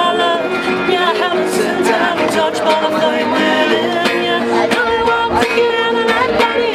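Live acoustic folk band playing: strummed acoustic guitars with a bowed fiddle carrying a sliding melody over them.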